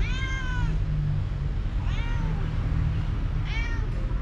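Young domestic cat meowing three times: a long arched meow at the start, then two shorter ones about two and three and a half seconds in. A steady low rumble runs beneath.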